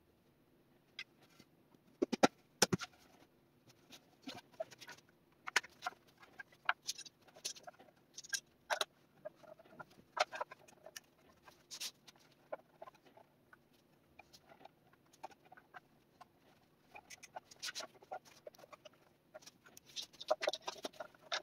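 Clicks and light knocks of pine boards and plastic one-handed bar clamps being handled and set against each other, the loudest knocks about two seconds in and a quick flurry of clicks near the end.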